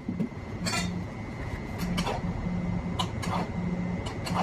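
Several light clinks and taps of a milk pitcher and glassware while cold milk foam is poured from the pitcher onto a glass of iced tea, over a steady low hum.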